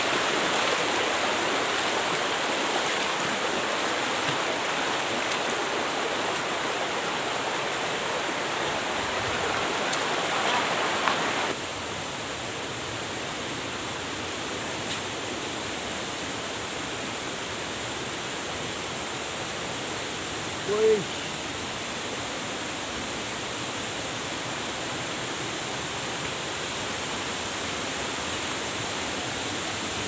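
Swift, shallow river water rushing over rocks, a steady rush of water noise; about eleven seconds in it drops to a softer steady rush. A brief, short pitched sound stands out about two-thirds of the way through.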